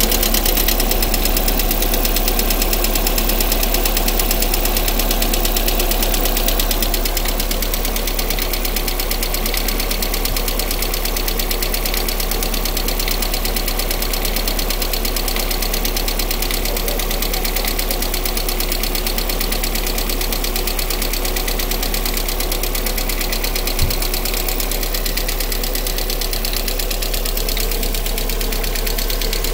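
Lada Priora engine idling with a fast, steady knocking tick, a knock that came on after long standing and that the owner puts down to the hydraulic valve lifters or the piston group. The sound eases slightly about seven seconds in, and there is a single sharp click near the end.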